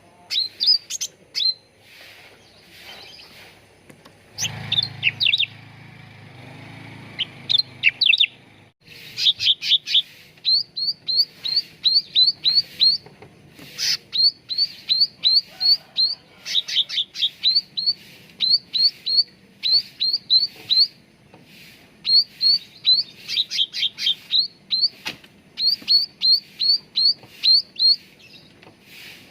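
Cucak ranting (a leafbird) singing: runs of short, high, rising chirps repeated about three or four a second, broken by brief pauses and a few sharper downward notes.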